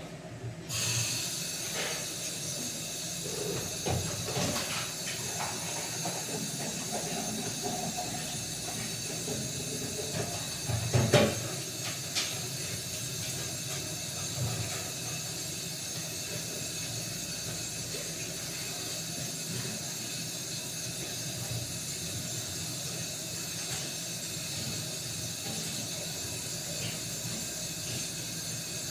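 A steady hiss from the cooking starts abruptly about a second in and holds, with a few knocks and a louder clatter about eleven seconds in.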